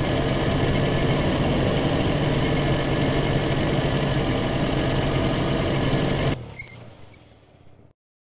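Truck engine running steadily, cutting off abruptly about six seconds in, followed by two short louder sounds.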